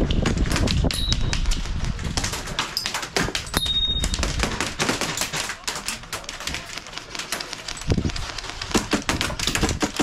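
Airsoft gunfire: rapid, irregular sharp clicks and snaps of shots, several a second, with no let-up.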